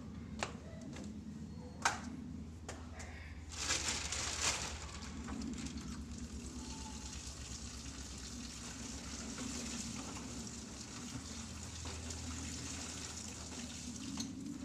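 A water tap turned on about three and a half seconds in and left running, with a steady hiss and splash of water, loudest at first. Two sharp knocks come before it, over a steady low hum.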